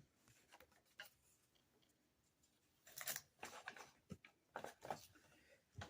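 Packing paper crinkling and rustling in short crackly bursts as it is pulled out of a shipping box, starting about halfway through after a near-silent pause.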